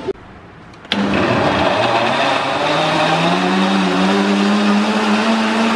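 Countertop blender with a stainless steel jar switching on with a click about a second in, then running at high speed as it grinds spinach and fruit into a smoothie. Its motor pitch rises for a couple of seconds as it spins up, then holds steady.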